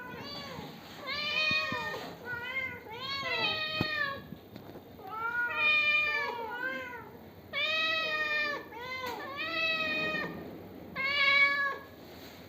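Domestic cat meowing over and over, about eight meows of under a second each, several rising then falling in pitch.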